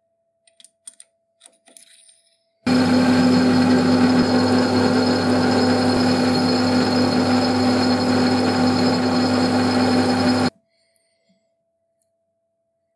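A few light handling clicks, then a workshop power tool runs at a steady pitch for about eight seconds, starting and stopping abruptly.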